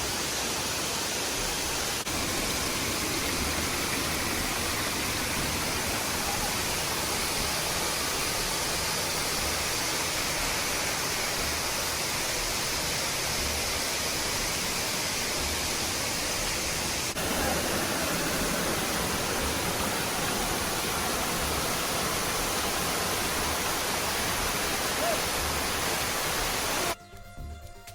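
Waterfall: a steady, dense rush of falling water, cutting off suddenly near the end.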